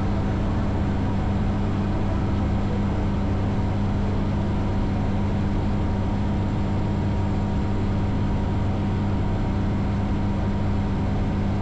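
Light aircraft's engine and propeller running steadily in level flight, heard inside the cockpit as a constant low hum under a wide rushing noise.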